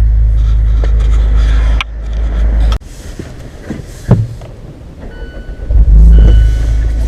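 Idling exhaust of a 2016 Mazda 3 GT with twin Spintech Super Pro Street 9000 mufflers, under a heavy low wind rumble on the microphone. The rumble cuts off suddenly about three seconds in. After a single thump, it returns near the end along with a steady high tone.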